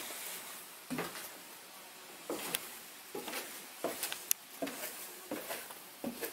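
Footsteps going down old wooden stairs, an irregular series of dull thumps about every half second to a second, with a few sharper clicks among them.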